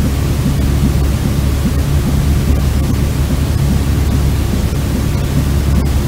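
Steady white noise for soothing a colicky baby to sleep: an even, unbroken hiss, heaviest in the bass.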